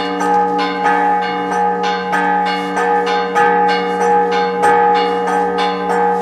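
Church bells ringing in a rapid peal, struck about three times a second over the steady hum of their overlapping tones.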